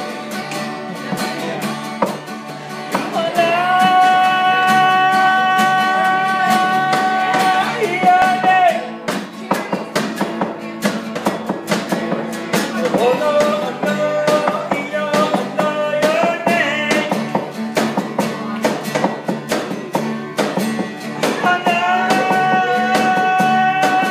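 Live guitar music with singing: fast, steady strumming under a melody held in long notes, one from about three to eight seconds in and another near the end.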